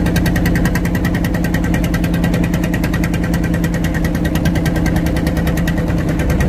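A boat engine running steadily at close range, with an even, rapid pulsing beat.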